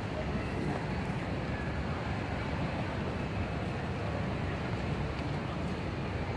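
Steady low background noise of a large airport terminal hall, with no clear single sound standing out.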